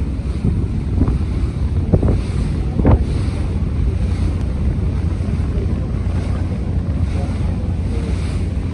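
Wind buffeting the microphone over the steady low rumble of a boat under way on open water, with three short thumps about one, two and three seconds in.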